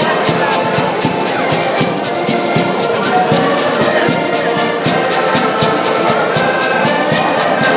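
Band music played live, with a melody over a steady drum beat.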